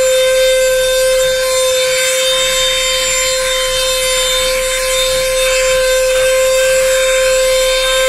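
Portable handheld vacuum cleaner running at a steady pitch: a constant high motor whine over the rush of air through the nozzle.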